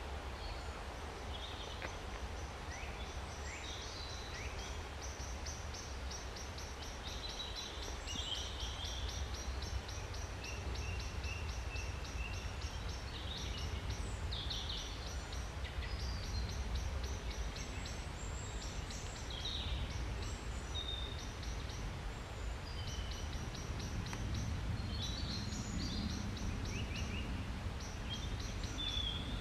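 Woodland birds calling and singing: short chirps and whistles, with a fast, high, ticking trill repeating through much of it, over a steady low rumble.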